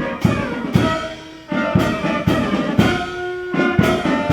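Brass-led music with held chords and drum beats about twice a second.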